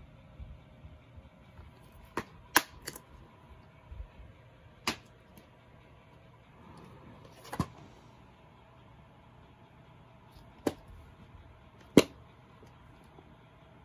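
Plastic DVD cases being handled: a series of sharp clicks and taps as cases are opened, shut and put down, about seven over the stretch with the loudest near the end, over a faint steady hum.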